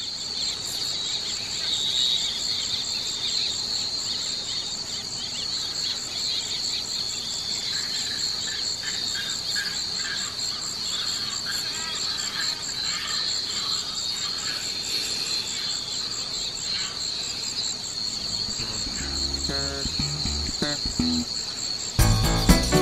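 Chorus of insects, a steady shrill trilling held at two high pitches. Music with a beat fades in over the last few seconds and gets loud at the very end.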